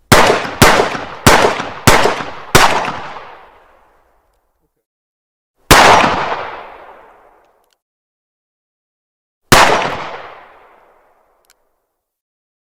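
9mm pistol firing: five shots in quick succession about two-thirds of a second apart, then two single shots a few seconds apart. Each shot leaves a long echoing tail that dies away over a second or two.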